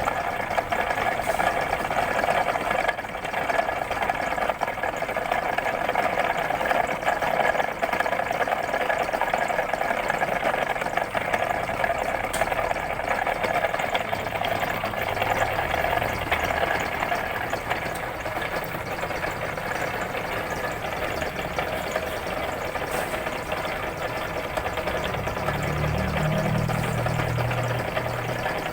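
Machine tool running steadily, a continuous mechanical sound with a constant whine. A lower hum comes and goes in the second half.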